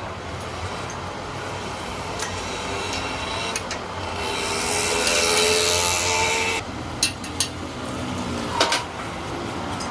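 Metalworking in a workshop on a truck axle housing: a steady machine hum, a rasping, scraping noise that swells for about two and a half seconds mid-way, then a few sharp metal clinks.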